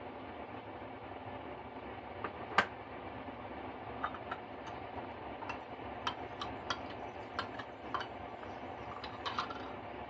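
Metal spoon clinking against a small glass jar while stirring liquid: a string of light, irregular clinks in the second half, after one sharper knock about two and a half seconds in. A steady background hiss runs underneath.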